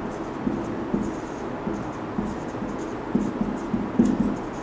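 Marker pen writing on a whiteboard: a run of short, irregular squeaky and scratchy strokes, the loudest about four seconds in.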